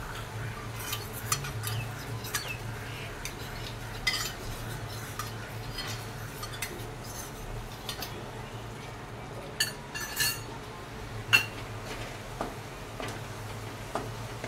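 Wooden spatula stirring a thick masala with curd in a steel kadai, scraping and knocking against the pan as it is kept moving briskly. Scattered clicks and knocks run through it, the sharpest a little past three-quarters of the way through, over a steady low hum.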